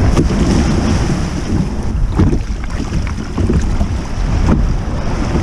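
Surf washing and splashing around a plastic kayak's hull as it is pushed off through the shallows, with strong wind buffeting the microphone. A few sharper splashes stand out over the steady rush of water.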